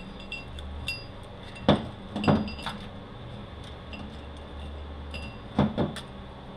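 Metal-on-metal clinks and knocks from Honda MRVA automatic transmission parts being handled during teardown: bearings, washers and gears knocking against each other and against a pick tool. There is a pair of sharp clinks about two seconds in and another pair near the end, with faint short ringing between them.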